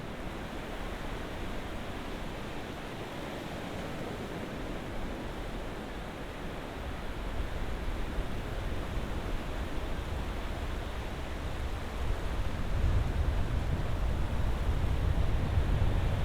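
Ocean surf: a steady wash of waves, swelling louder with a deeper rumble about three quarters of the way through.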